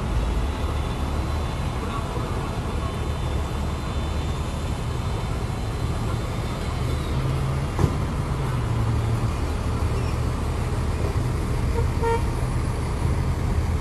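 Steady low rumble of idling vehicle engines and road traffic, with a single sharp click a little past the middle and a brief pitched beep near the end.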